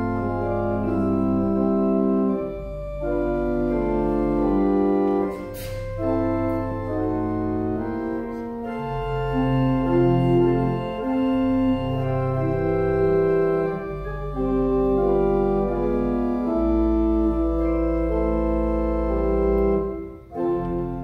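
Organ playing slow, sustained chords over long-held low bass notes, with a brief break in the sound near the end.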